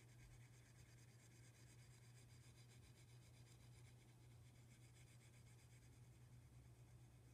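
Near silence: faint scratching of a pyrography pen's hot wire nib stroking across wood, over a steady low hum.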